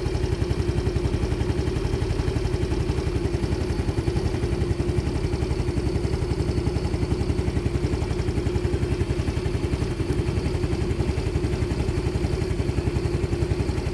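Motorcycle engine idling steadily, a fast, even run of firing pulses that holds the same pitch throughout.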